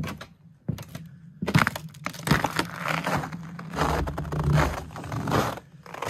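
Thawing lake ice crackling as it breaks up in spring: a few separate sharp clicks at first, then from about a second and a half in a dense, continuous crackle of cracking and jostling ice.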